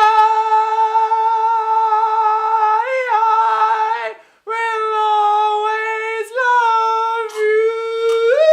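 A person's voice singing long, high, steady held notes: one note for about four seconds, a brief break, then a second held note that slides up in pitch near the end.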